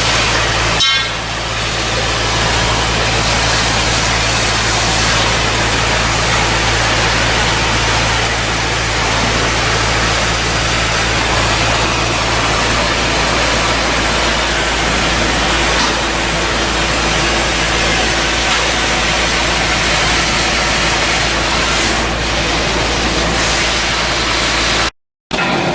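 Steady, loud machinery noise with a constant low hum, like an engine-driven machine running. It breaks off briefly about a second in and cuts out for a moment near the end.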